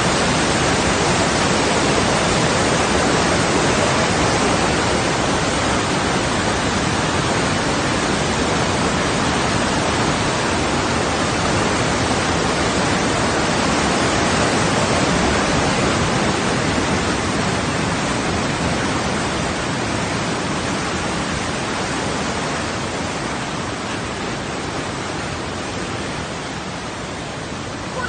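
Steady rushing of a large waterfall and the white-water river below it, running high with snowmelt. It eases off a little in the last several seconds.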